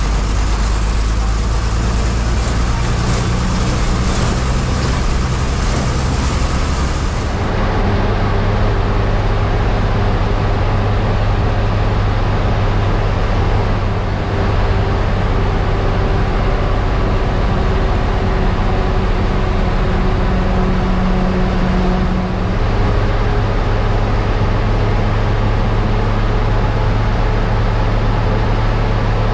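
MSRTC bus running on the road, heard from inside the cabin: a steady engine drone with road noise, the engine note shifting about 7 seconds in and again around 22 seconds in.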